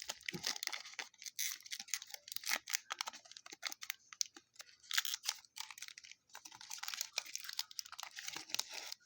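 Trading card pack wrapper crinkling and tearing as it is opened by hand, a dense run of irregular crackles.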